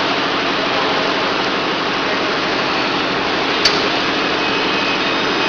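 Bottled-water production line running: conveyors and the film shrink-wrapping machine give a steady mechanical noise, with one sharp click about three and a half seconds in.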